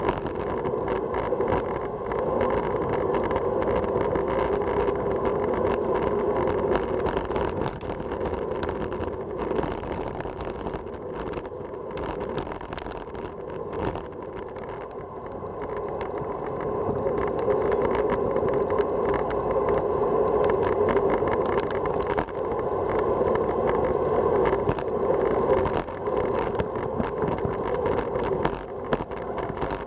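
Wind rushing over the microphone of a bicycle-mounted camera at speed, with tyre noise from the road and scattered small knocks and rattles from bumps. It eases for a few seconds about halfway through, then rises again.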